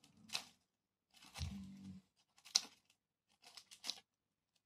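Dry leaf litter being cut up with scissors: a handful of crisp, irregular snips and crackles of brittle leaves.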